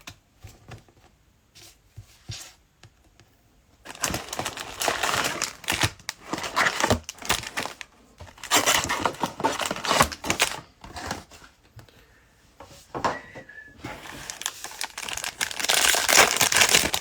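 Plastic cello-pack wrappers of trading cards crinkling and tearing as packs are ripped open, in several bursts after a few quiet seconds with faint clicks.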